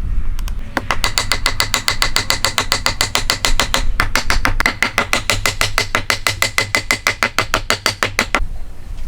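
Rapid, even hammer strikes, about six a second, with a metallic ring, pausing briefly about four seconds in.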